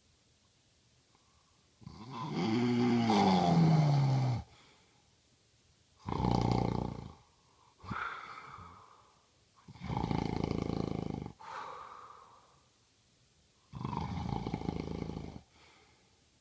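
A man snoring in his sleep: four loud snores a few seconds apart. The first is long and falls in pitch, and some are followed by a quieter breath out.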